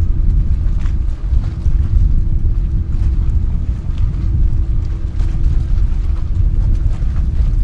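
Boeing 929 jetfoil running in on its foils: the steady rumble of its gas-turbine-driven water jets with a steady hum, mixed with wind buffeting the microphone.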